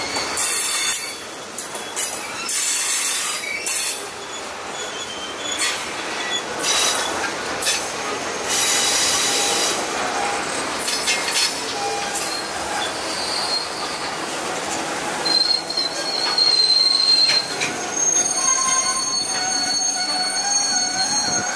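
Cars of a Norfolk Southern manifest freight train rolling past at close range: a steady rumble and rattle of steel wheels on rail with scattered clanks, and high-pitched wheel squeal coming in during the second half.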